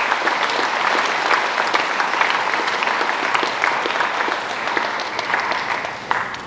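Audience applauding, the clapping dying down near the end.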